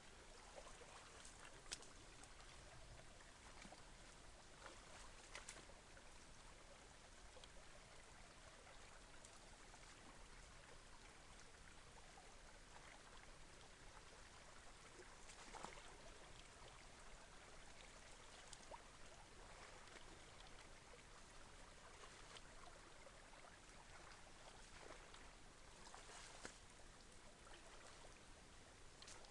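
Near silence: a faint, even background hiss with a few scattered soft clicks.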